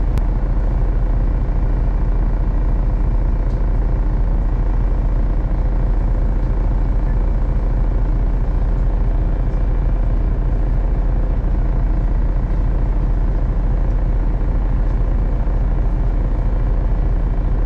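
Fishing boat's engine running steadily, a loud low drone with no change in speed.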